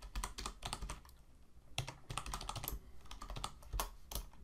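Typing on a computer keyboard: quick, irregular runs of keystrokes with a short pause about a second in.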